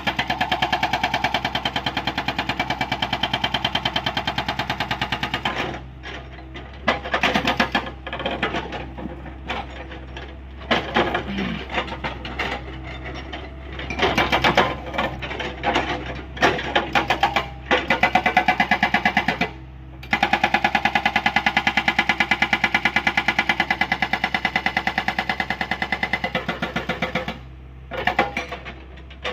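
Hydraulic rock breaker on a Hyundai 85A excavator hammering in rapid, even strokes, over the steady drone of the excavator's diesel engine. The hammering runs in long bursts that break off and restart several times, with brief pauses a little after the middle and near the end.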